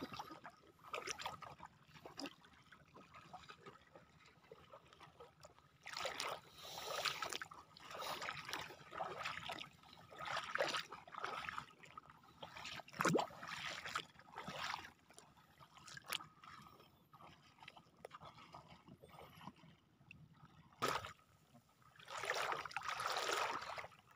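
Shallow seawater sloshing and splashing in irregular bursts as someone wades through it, with quieter pauses between the steps.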